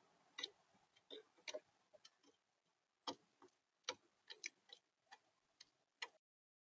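Irregular sharp taps and clicks, about a dozen, of an animal feeding on a bird feeder, picked up close by the feeder camera's built-in microphone.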